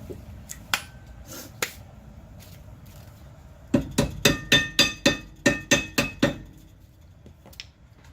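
A hammer striking metal about ten times in quick succession, roughly four blows a second, each with a ringing metallic tone, preceded by a couple of lighter clicks.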